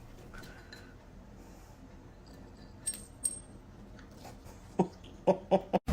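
Two light metallic clinks about three seconds in, like small metal or glass pieces tapping together, over quiet room sound. Near the end, short regular pulses begin as electronic music starts.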